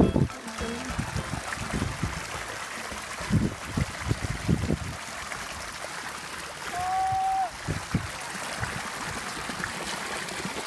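Shallow muddy water running and trickling over a drained pond bed, with a few dull low thumps. A brief single high tone sounds about seven seconds in.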